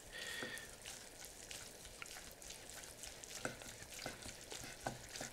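Faint clicks and taps of a knife and carving fork against a wooden cutting board as a braised beef roast is sliced, with a few sharper knocks in the second half over a faint crackle.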